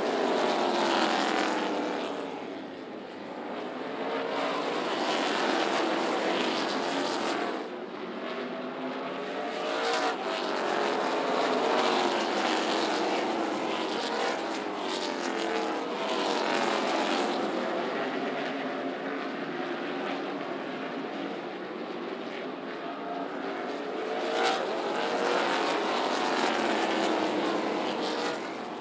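A pack of NASCAR K&N Pro Series V8 stock cars racing on a short oval. Their engines rise and fall in pitch as the cars go past and come off and back on the throttle through the turns. A brief sharp crack sounds near the end.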